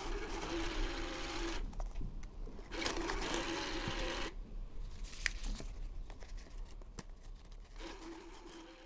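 Toy ATM piggy bank's small motorised rollers whirring as they pull banknotes into the slot: three runs of about a second and a half each, at the start, around three seconds in, and near the end.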